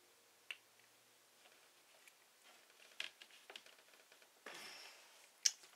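Faint clicks and taps of small plastic toy parts being handled, as a Playmobil figure's hair piece is pushed onto its head and won't stay on. A short rustle about four and a half seconds in and a sharper click near the end.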